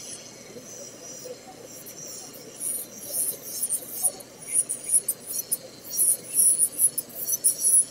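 Electric nail drill grinding a fingernail tip to shape it, in many short, high-pitched bursts that start about two and a half seconds in and come quickly until the end.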